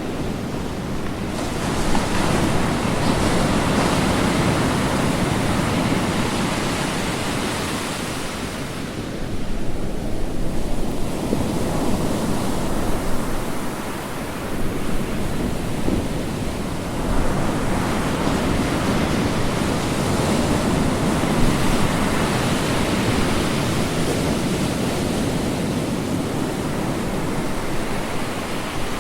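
Ocean waves breaking and washing on the shore in continuous surf, the hiss of the broken water swelling and easing as successive waves come in.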